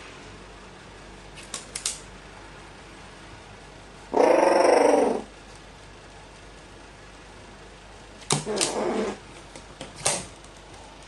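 Carrion crow giving a low rattling 'gorororo' call, about a second long, a few seconds in. Two shorter, noisier sounds follow near the end, after a few faint clicks before the call.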